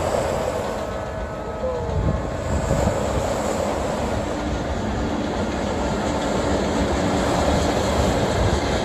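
Electric commuter train passing, a steady sound of its wheels running on the rails.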